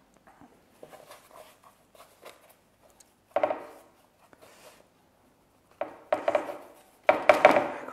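Pastry handling on a parchment-lined metal baking tray: soft rubbing of dough and floury hands, then a sharp knock of the tray about three and a half seconds in. Louder clattering and rustling come in the last two seconds as dough is laid on the tray.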